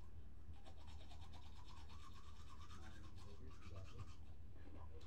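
Manual toothbrush scrubbing teeth in rapid, even back-and-forth strokes.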